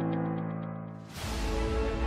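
Background music: a held chord fades away, then a new, fuller passage with heavy bass comes in about halfway through.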